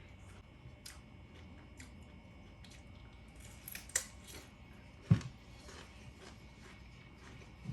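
Faint clicking and tapping of dishes and utensils, with a sharp click about four seconds in and a heavier knock a second later.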